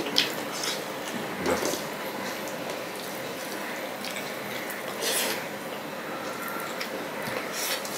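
Fingers pressing and gathering curry-soaked rice on a steel plate, giving soft wet squishing, with a few short sharp clicks now and then.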